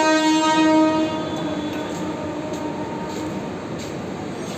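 A single horn blast on one steady pitch, loud at first, then trailing off and fading out about two to three seconds in, over a steady noisy background.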